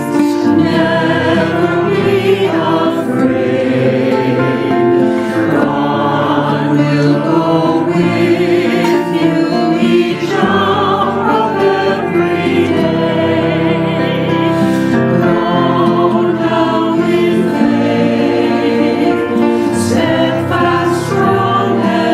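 Church choir singing, holding slow-changing chords.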